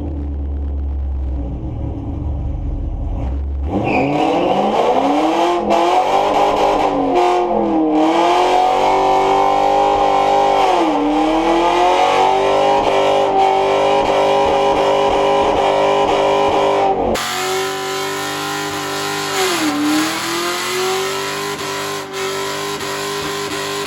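Car engine running low, then revving hard about four seconds in and held at high revs for a burnout, its pitch sagging briefly several times before climbing again. The sound changes abruptly once, about two-thirds of the way through.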